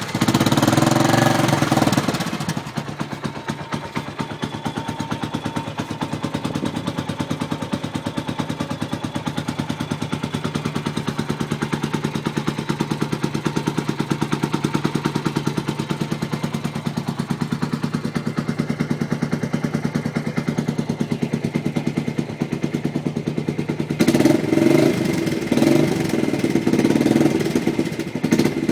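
Suzuki Intruder 250 motorcycle exhaust running with its asbestos exhaust gasket missing: the engine is revved up briefly at the start, settles to a steady rapid-pulsed idle, and is revved again near the end.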